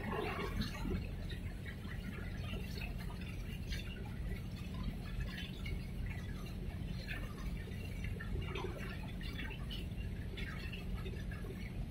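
Harbour water lapping and splashing in small irregular slaps over a steady low rumble.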